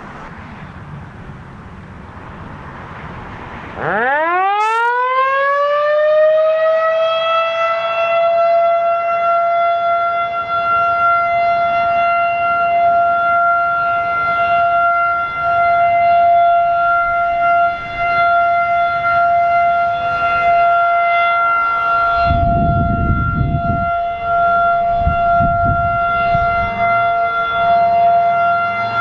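Federal Signal 2001 electromechanical outdoor warning siren starting up about four seconds in: its pitch climbs quickly as the rotor spins up, then settles into a steady tone for a siren test, its loudness wavering slightly. A brief low rumble comes near the end.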